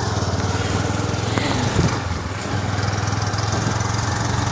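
Small motorcycle engine running steadily under way, heard from on the bike as a fast, even pulsing hum, with a hiss of wind and wet road under it.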